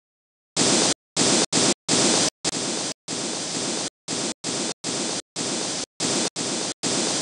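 Chopped bursts of static hiss, about a dozen, switched on and off abruptly in an uneven stutter, starting about half a second in: an edited glitch-style sound effect.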